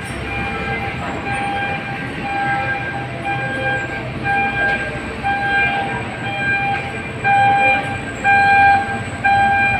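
Container-truck horn sounded again and again in short blasts, about one a second, over a low rumble.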